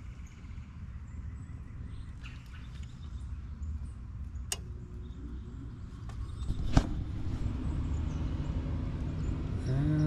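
Two sharp clicks, about four and a half and seven seconds in, the second louder, after which the gas pack's capacitor-run (PSC) indoor blower motor starts and runs with a steady hum. The motor is drawing current and running while being jumpered.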